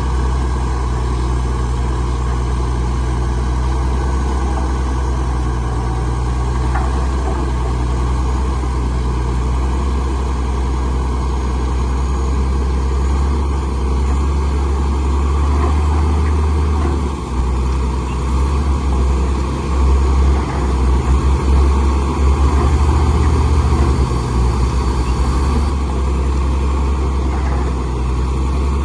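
Heavy diesel engine of earth-moving machinery running steadily with a loud low drone, wavering and surging unevenly for several seconds past the middle as the load changes.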